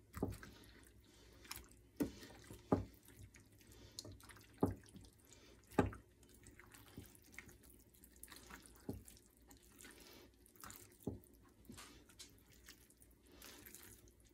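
Silicone spatula stirring a thick, wet casserole mixture of sauce-coated biscuit pieces, chicken and ham in a glass baking dish. It makes faint squelching with irregular clicks and knocks as the spatula strikes the glass.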